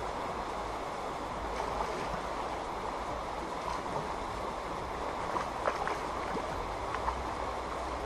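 Shallow river water rushing steadily over a gravel riffle. A few short ticks rise above it between about five and seven seconds in.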